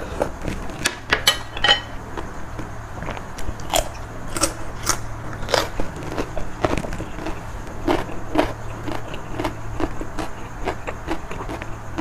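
Close-up eating of a spicy Thai seafood salad with broth: a sip from a spoon with a quick run of sharp wet mouth clicks about a second in, then steady chewing with irregular smacks and clicks.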